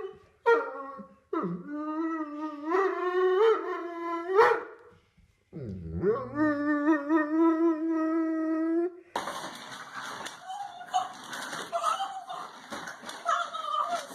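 A dog howling in two long drawn-out howls: the first wavers up and down in pitch, the second is held on a steady note. After about nine seconds the howling gives way to a noisier jumble of sound.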